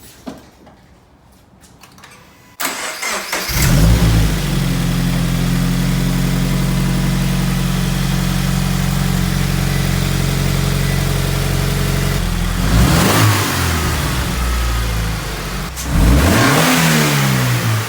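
A BRZ/FR-S/86's 2.0-litre flat-four boxer engine, fitted with a freshly installed cold air intake, cranks and starts about three seconds in, flares up, then settles to a steady idle. It is revved twice near the end, the pitch rising and falling each time.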